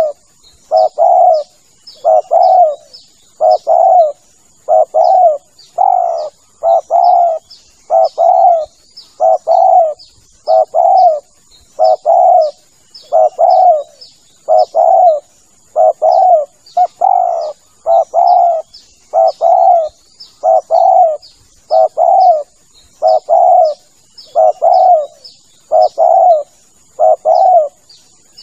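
Spotted dove (tekukur) cooing over and over: a steady run of loud low coos, about one to two a second, some in close pairs, played as a hunting lure call. Faint high chirps sound behind.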